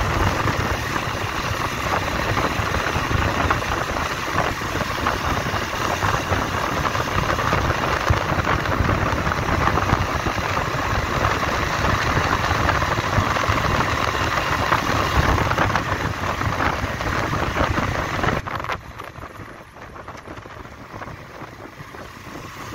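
Wind rushing over the microphone of a motorcycle-mounted camera at road speed, a dense steady noise over the bike's engine. About 18 seconds in it drops away sharply as the motorcycle slows.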